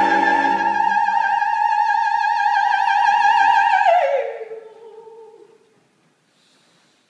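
Operatic soprano holding one high note with wide vibrato; the accompaniment drops out about a second in. Just past halfway the note slides down and fades away, leaving near silence.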